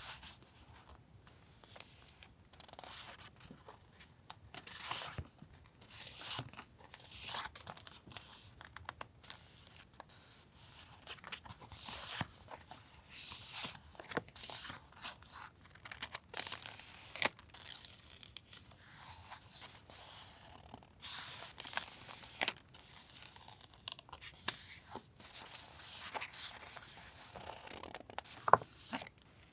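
Paper and plastic stationery packaging handled up close: a string of short, irregular tearing and crinkling rustles as items are unwrapped and sorted.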